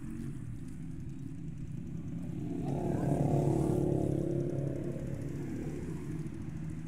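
Street traffic: a steady low engine hum, with a car passing that swells up and fades away over a couple of seconds, loudest about three seconds in.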